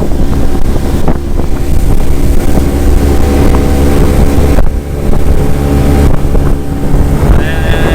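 Motorboat's outboard engine running steadily under way, with wind buffeting the microphone.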